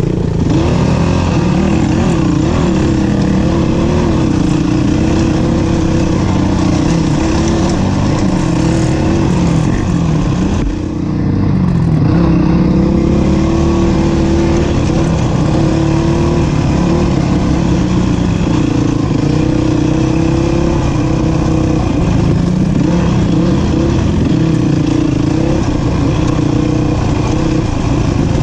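Honda dirt bike's engine being ridden along a trail, its pitch rising and falling with the throttle, easing off briefly about eleven seconds in before pulling again.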